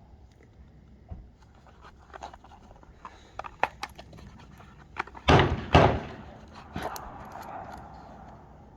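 Handling of shooting gear: a run of light clicks and knocks, then two loud thuds about half a second apart, followed by a few more clicks.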